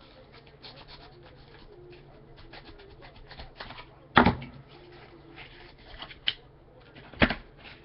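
A trading card pack being opened and handled by hand: wrapper crinkling and small clicks, with two louder knocks about four and seven seconds in.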